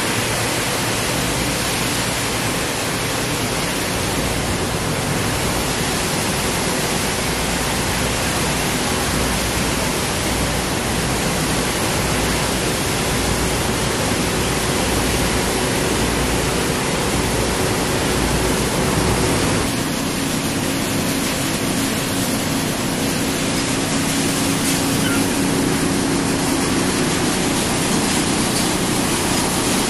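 Battery recycling line machinery running: a loud, even rushing noise of shredded material pouring over a vibrating screen, with a steady machine hum underneath that shifts lower about twenty seconds in.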